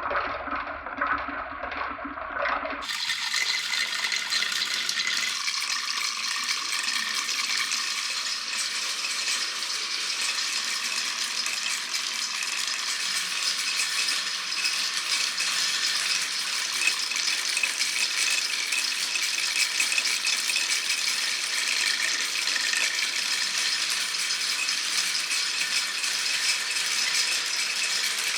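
Glass marbles rolling and clattering continuously along a wooden marble run. About three seconds in the sound changes abruptly to a brighter, denser, unbroken rattle of many marbles at once.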